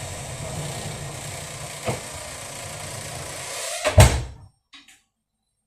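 A door swinging shut under a door closer and slamming into its latch with one loud bang about four seconds in, with no delayed action on the closer. Before it a steady hum, with a light click about two seconds in.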